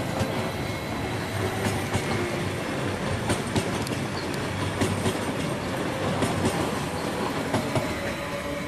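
A Leo Express Stadler FLIRT electric multiple unit passing, its wheels running over the rails with steady rolling noise and irregular clicks over rail joints and points.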